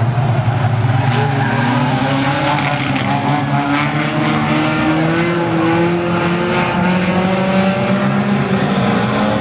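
Several banger racing cars' engines running together, loud and continuous, their pitches rising and falling as the cars accelerate and ease off around the dirt oval.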